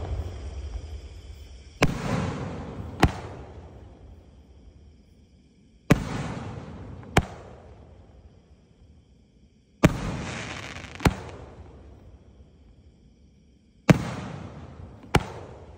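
3-inch aerial display shells fired one at a time from mortar tubes, four in all at about four-second intervals. Each launch thump is followed by a fading hiss as the silver tail climbs, and the shell bursts with a sharp bang about a second and a quarter later.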